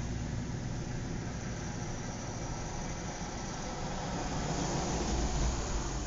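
Outdoor suburban ambience: a steady hum of distant road traffic, swelling a little after about four seconds as a car passes.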